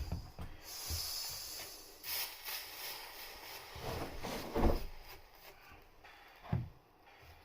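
A few scattered knocks with rubbing and rustling between them, the handling noise of objects being moved and set down; the loudest knocks come about four and a half seconds in and near the end.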